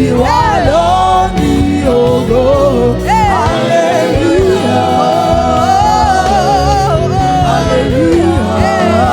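Gospel praise-and-worship music: a lead voice sings in sweeping, gliding runs over a full band with a steady bass.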